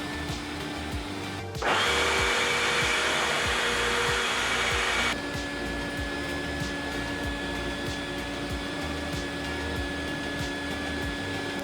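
Vacuum cleaner motor running steadily with a constant whine. From about one and a half seconds in to about five seconds in it turns louder and hissier, with a changed pitch, as if air is rushing through it, then settles back to the same steady whine.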